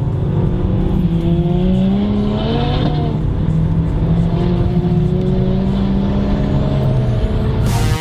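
Seat Ibiza Cupra's 1.8 turbo four-cylinder engine through its cat-back exhaust, heard from inside the cabin while driving. The engine note rises under acceleration, drops at a gear change about three seconds in, then holds steady at cruise. Electronic music cuts in near the end.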